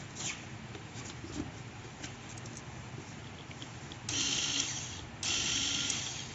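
Corded electric screwdriver running in two short bursts, each about a second, backing screws out of the plastic underside of a robot vacuum. Before that, light clicks of the vacuum's plastic being handled.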